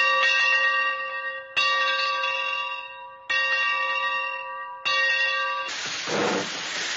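A bell struck four times, about a second and a half apart, each strike ringing with several tones and fading. Near the end a rushing noise that swells and ebbs in waves takes over.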